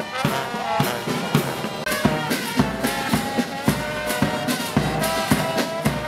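Military marching band playing a march: trumpets, trombones and sousaphones over a steady drum beat of about two strokes a second.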